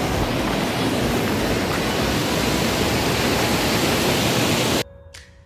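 Steady rushing of a mountain stream tumbling over small rocky cascades, a continuous hiss of water. It cuts off suddenly near the end, where a few plucked music notes begin.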